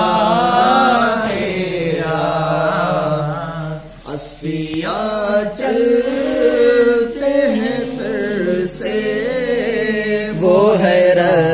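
Unaccompanied male voice chanting an Urdu naat, holding long ornamented notes between the words of a line, with a short breath pause about four seconds in.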